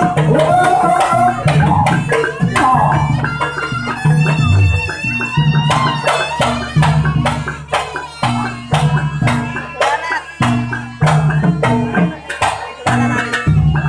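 Javanese jaranan accompaniment music: kendang hand drums beat a steady, driving rhythm under a repeating low pitched figure, with melodic lines above.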